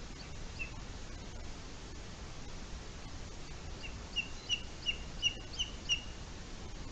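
A bird calling: one short high note, then a run of about seven short, sharp high notes, roughly three a second, over a steady background hiss.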